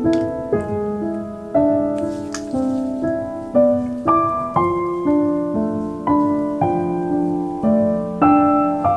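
Background piano music: a calm melody with chords, notes struck about twice a second and left to fade.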